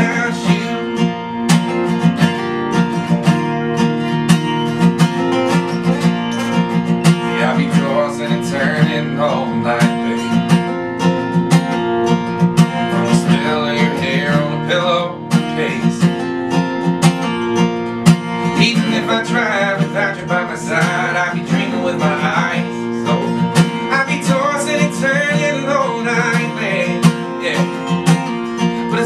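Two acoustic guitars strumming and picking a country ballad, with a man singing in phrases over them.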